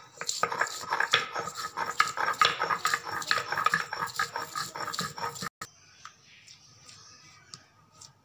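Stone roller worked on a flat grinding stone (shil-nora), crushing garlic cloves into paste: a fast, uneven run of crunching knocks that cuts off abruptly about five and a half seconds in.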